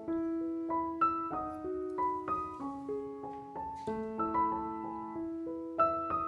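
Background piano music, a melody of notes struck one after another.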